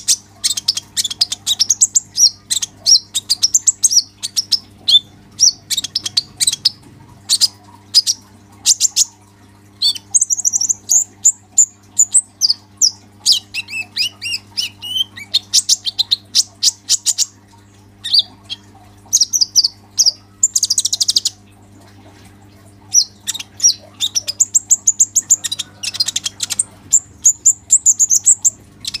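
Male kolibri ninja sunbird singing nonstop: fast, high-pitched twittering and chattering phrases with only brief pauses. A faint steady low hum lies underneath.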